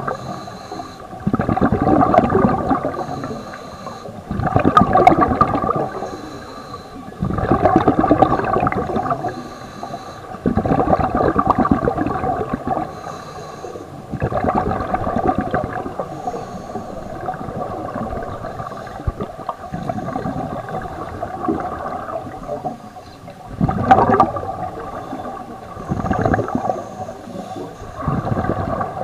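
Scuba regulator breathing heard underwater: rushes of exhaled bubbles gurgling out in bursts every two to three seconds, the loudest about 24 seconds in.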